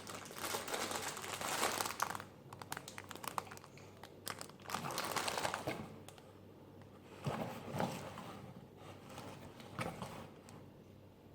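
Packaging crinkling and rustling as it is handled during unboxing. Bursts of rustling come in the first two seconds and again around five seconds in, with scattered clicks between them and a few shorter rustles later.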